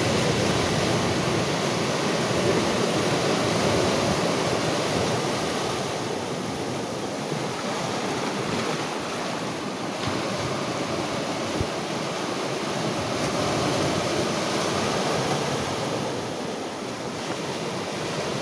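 Sea surf: waves breaking in a steady rush that slowly swells and eases.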